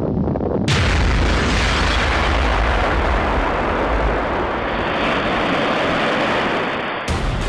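Water rushing and surging in a sudden loud flood, starting abruptly about a second in and running steadily, then giving way near the end to a sound of rapid, even strokes.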